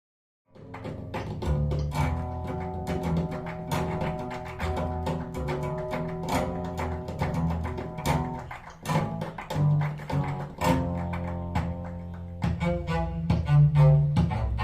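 Instrumental music with low bowed strings, played back through three-way bookshelf speakers driven by a tube amplifier. It begins about half a second in after a brief silence and swells louder near the end.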